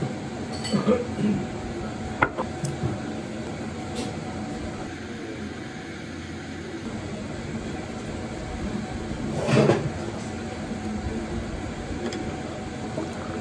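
Steady hum of a small eatery's room tone. A few light clicks and knocks in the first three seconds, and a short, louder knock about ten seconds in, from tableware being handled at the table.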